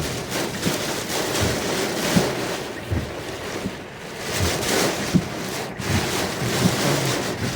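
Heavy rain and gusting wind battering a car in a severe storm, heard from inside the car: a loud rushing that swells and fades, with occasional dull thumps.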